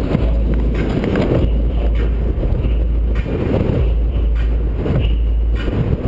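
Heavy wind rumble and road noise from an open-top 2005 Corvette C6 driving at highway speed, rising and falling in uneven gusts.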